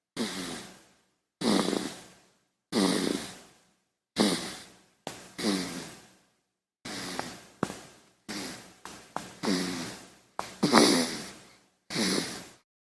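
A baby snoring: about a dozen short, breathy snores and sighs, roughly one a second and unevenly spaced, each starting sharply and fading out, with silence between them.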